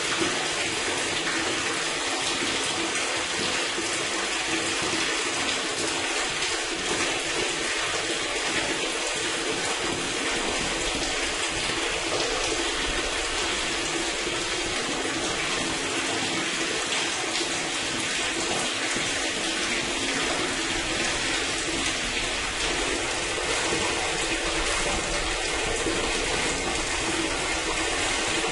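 Water pouring and gushing steadily through a sewer drain or gully channel, a constant rushing splash.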